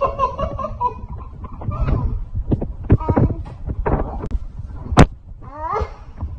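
Voices mixed with low bumps and knocks of a handheld phone being moved, and a sharp click about five seconds in.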